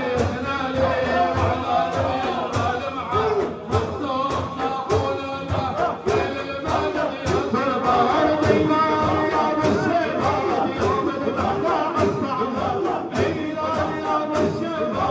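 Zikir chanting: voices singing together in a Sufi devotional chant over a steady drumbeat.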